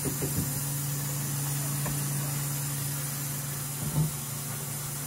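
Taco meat sizzling on a comal with a steady low hum underneath, a few light knocks, and a louder bump about four seconds in.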